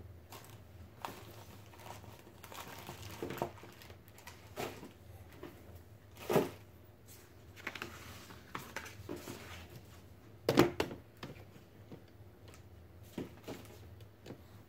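Hands handling cardboard and paper board-game components on a table: scattered rustling, crinkling and light clicks, with two louder knocks, one a little before the middle and one about two-thirds through.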